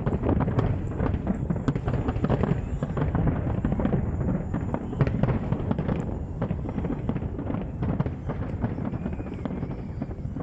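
Aerial fireworks going off: a dense, continuous run of bangs and crackles with a steady low rumble.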